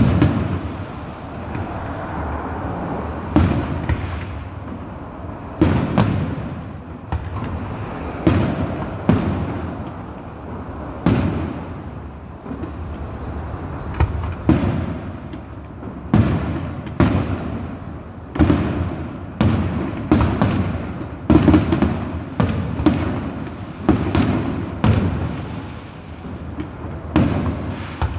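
Aerial fireworks bursting in quick, uneven succession, about one bang a second, each dying away in a rolling echo.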